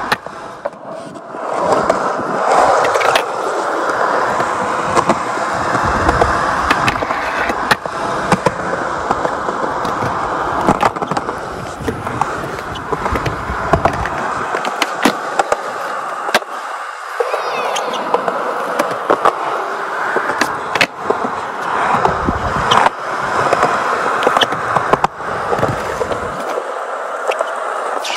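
Skateboard wheels rolling on concrete, a steady rumbling hiss. It is broken by many sharp clacks of the board popping, landing and striking ledges and boxes.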